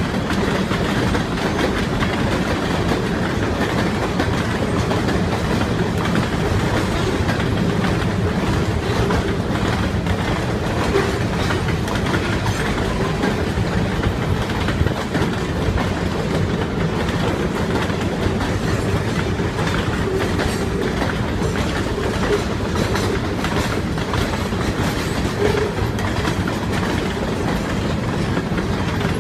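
Freight cars of a long CSX train rolling past, a steady rumble with the clickety-clack of wheels over rail joints.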